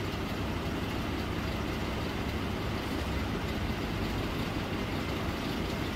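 Steady low rumbling background noise of a classroom with no one speaking, even throughout with no distinct events.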